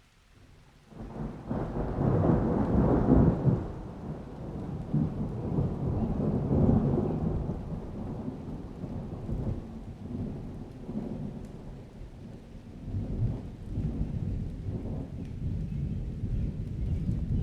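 Thunder rolling in about a second in out of near quiet, loudest over the next few seconds, then rumbling on in long waves through steady summer rain.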